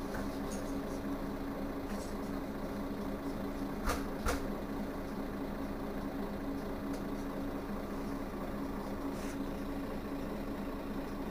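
Mercedes-Benz Citaro Facelift city bus engine idling with a steady hum. Two short sharp knocks come about four seconds in, a moment apart.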